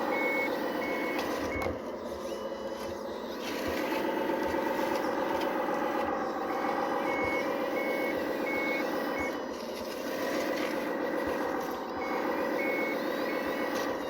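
RC hydraulic construction models at work: a steady motor and pump whine that shifts in pitch as the load changes, with a reversing beeper sounding in three short runs of quick beeps, near the start, in the middle and near the end.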